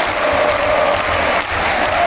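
Ice hockey supporters in the arena stands singing and chanting together, a dense mass of voices.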